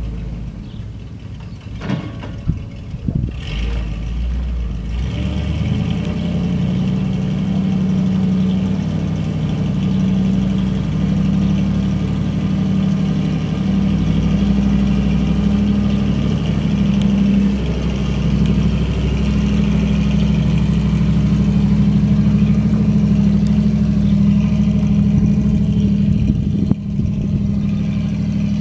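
1967 Dodge 500 grain truck's gasoline engine running steadily as the truck drives slowly across grass. A few short knocks sound in the first few seconds.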